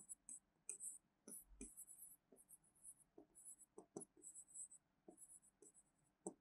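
Faint pen strokes on a writing board: a string of short, irregular scratchy strokes as words are written by hand.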